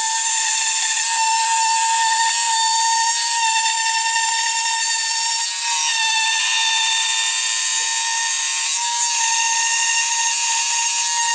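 Orbital sander running steadily with a high-pitched motor whine, sanding leftover window-seal residue off the metal window opening.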